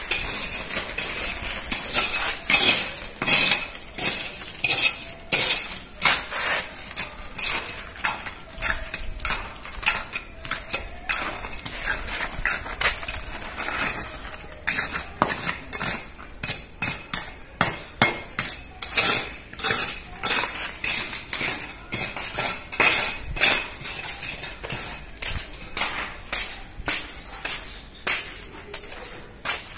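Steel trowel scraping and knocking on wet cement mortar in quick, irregular strokes while a concrete drain channel is plastered.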